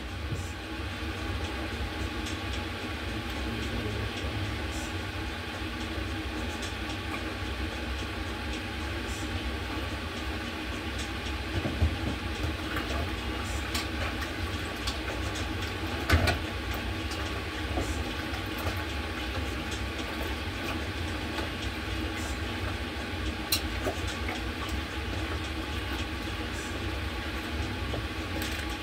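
A steady low mechanical rumble and hum, with a few short clinks and knocks of pots and utensils at the stove, the loudest about two-thirds of the way through.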